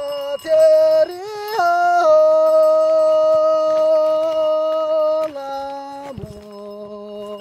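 Solo voice singing, sliding up through a few short notes into one long held high note. The voice steps down to a lower note a little after five seconds and breaks off about six seconds in.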